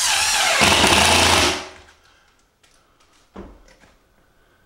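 Cordless impact driver driving a screw through a metal drywall corner bead: the motor whine rises, then it hammers rapidly for about a second before stopping about a second and a half in. A single knock follows a couple of seconds later.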